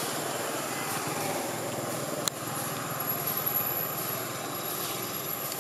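Steady rushing outdoor background noise with a low rumble, like distant engines or traffic. A sharp click comes a little over two seconds in, followed by a thin, steady high whine.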